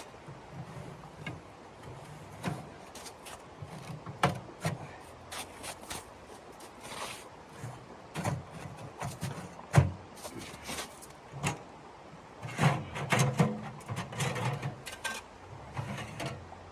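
Irregular knocks, clicks and rustles of objects being handled and set down, with a dense cluster of knocks near the end.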